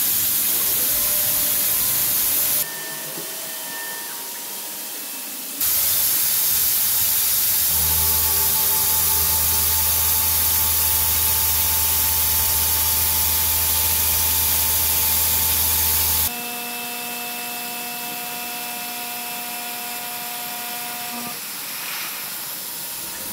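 Three-axis UDM-2216 machining center milling a steel mold component: a loud steady hiss of spray over faint steady tones from the spindle and cutter. The sound changes abruptly a few times between louder and quieter sections, with a low hum in the longest loud stretch.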